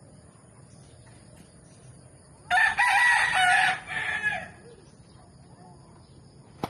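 Gamefowl rooster crowing once, about two and a half seconds in: a loud cock-a-doodle-doo of about two seconds that weakens in its last part. A short sharp click follows near the end.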